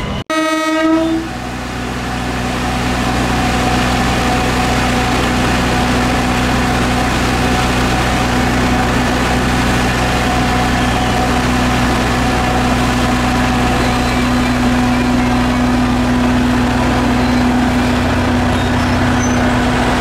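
One short train-horn blast about half a second in, then the engine of an Alishan Forest Railway DL49 diesel locomotive running steadily close by, getting slightly louder near the end.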